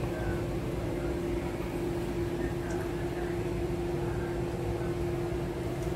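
Steady machine hum: one constant mid-pitched tone over a low rumble and hiss, with no change.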